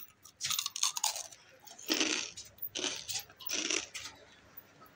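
Crisp fried papad being bitten and chewed close to the microphone: a handful of loud, crackly crunches, roughly one every second.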